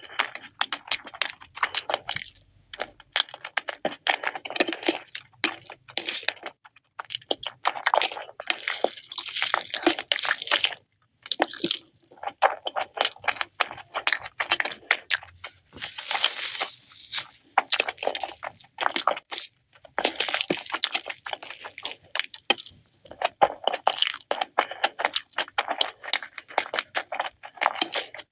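Close-up eating sounds: crunchy food being chewed, in clusters of crisp crackles with brief pauses between mouthfuls.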